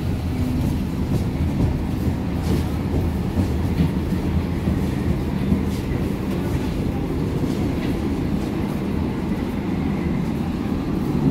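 Berlin U-Bahn F-series train pulling out of an underground station: a steady low rumble of wheels and running gear, with a few sharp clicks over the rails.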